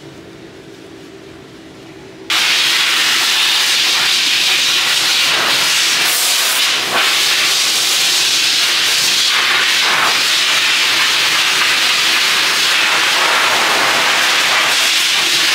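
Forced-air pet dryer at a self-serve dog wash switching on about two seconds in, a loud, steady rush of air blown through its hose onto a wet dog's coat.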